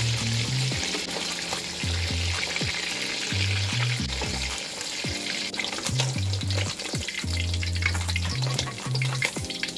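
Fish deep-frying in hot oil in a steel wok, a steady sizzle that thins to scattered crackles about halfway through as the pieces are lifted out, with a metal spatula clicking against the wok. Background music with a low bass line plays underneath.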